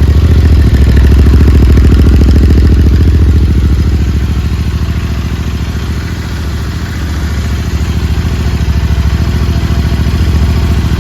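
Royal Enfield Interceptor 650's 648 cc parallel-twin engine idling through a freshly fitted Powerage short aftermarket exhaust, just after start-up. The steady idle dips slightly in level for a couple of seconds midway, then picks back up.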